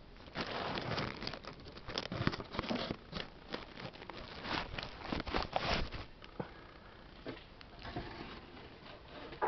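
Dry leaves and grass crackling and rustling right against the microphone for about six seconds, then a few scattered crackles.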